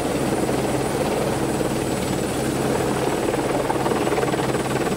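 Helicopter engine and rotor running steadily on the ground before takeoff, heard from inside the cabin with the door open: a constant hum and rush with a thin high whine over it.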